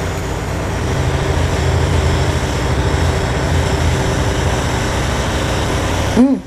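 Steady low mechanical rumble with a faint steady hum, which stops abruptly near the end. Just before it stops there is a short pitched sound that rises and falls, like a hummed "mm".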